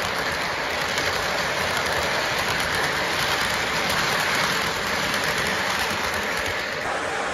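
Lionel model train cars rolling past close by: a steady rattling rumble of metal wheels on metal track, with fast ticking running through it.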